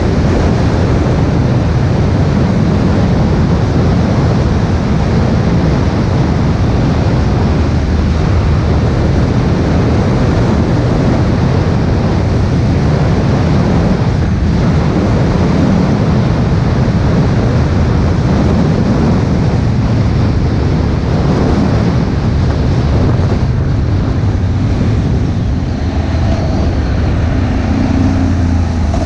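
Steady wind rush across the microphone of a vehicle-mounted camera, over the rumble of a vehicle's engine and tyres on the road as it drives.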